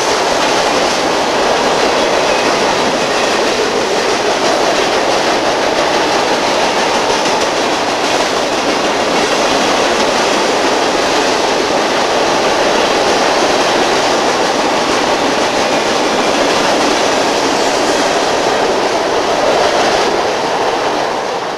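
Freight train rolling across a steel truss bridge: steady wheel-on-rail noise from the passing cars, fading in the last second or two as the end of the train clears.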